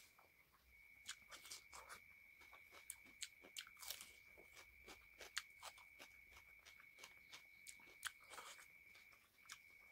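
Close-miked chewing with wet mouth clicks and crisp crunches, including bites into a raw onion slice. A faint steady high-pitched whine runs underneath.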